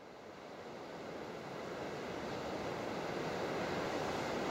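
Steady rushing ambience of wind and sea surf, fading in over the first two or three seconds and then holding even.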